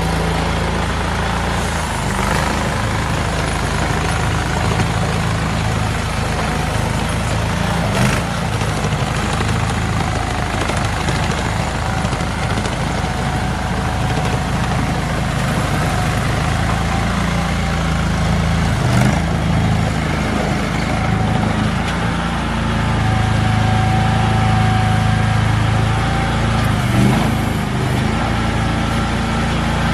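The 23 HP gas engine of a mini skid steer running steadily, with a faint whine coming and going and a few short knocks. It grows slightly louder about three-quarters of the way through.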